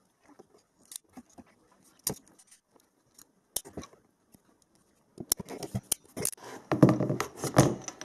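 Hand crimping tool squeezed shut on an insulated ring terminal, a run of sharp clicks about five seconds in, then louder clicking and clatter near the end, with light clicks of wires and terminals being handled before it.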